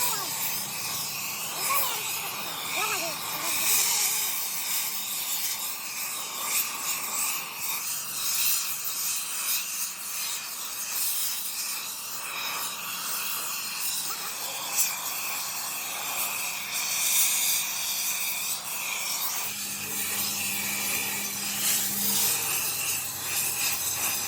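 Metal being worked with an abrasive, a steady rasping and rubbing that swells and eases every few seconds, over a faint low machine hum.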